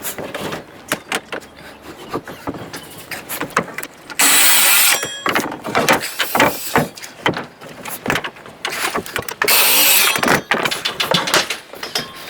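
Timber wall-framing work: a run of sharp knocks and clicks from nailing and handling framing timber, with two loud bursts of hissing noise, each about a second long, about four and ten seconds in.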